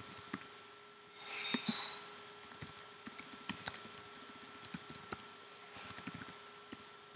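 Typing on a computer keyboard: irregular key clicks as text is entered, with a short louder noise about a second and a half in. A faint steady hum sits underneath.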